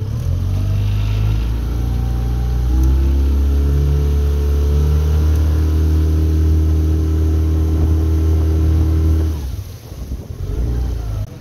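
9.9 hp outboard motor on a jon boat opened up from idle to full throttle: its pitch climbs over the first few seconds and then holds steady at full throttle. About nine seconds in it is throttled back and drops away.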